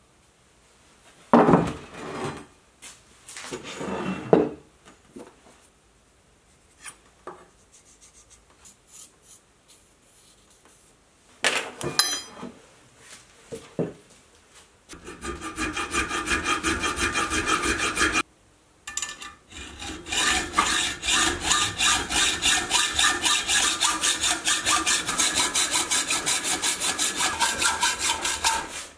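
Hacksaw cutting a round steel bar clamped in a bench vise, in rapid, even back-and-forth strokes that start about halfway in, with one short pause. Before the sawing, scattered knocks and clatter.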